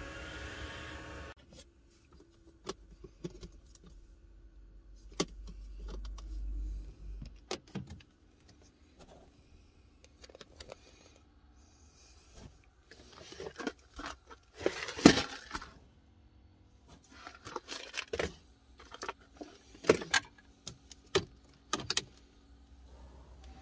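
Clicks, knocks and rattles of hard plastic storage crates and the items in them being handled and moved, with a sharper knock about two-thirds of the way through.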